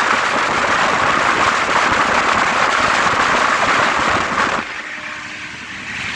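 Express train running at speed: a loud rushing noise with fast clattering of wheels on rails. About four and a half seconds in it drops suddenly to a quieter rumble.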